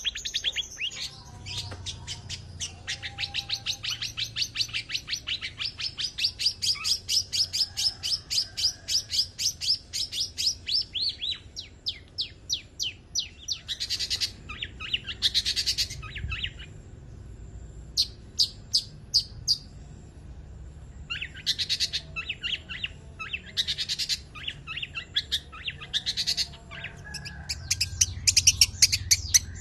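Long-tailed shrike singing a full, varied song of mimicked phrases, delivered as fast trains of sharp repeated notes. The note trains come in bursts, with a short lull just past halfway.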